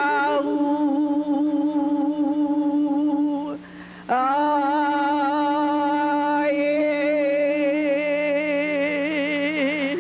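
A woman's solo Hawaiian chant (oli) held on one long, nearly level note with a wavering vibrato. It breaks for a breath about three and a half seconds in, then resumes with a short upward slide into the held note, and the wavering widens near the end.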